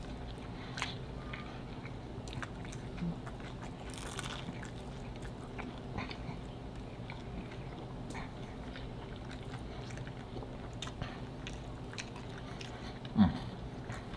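Close-up chewing of pizza topped with pulled pork and bacon: wet mouth clicks and smacks from two people eating, over a steady low hum. A brief, louder hum-like sound comes about a second before the end.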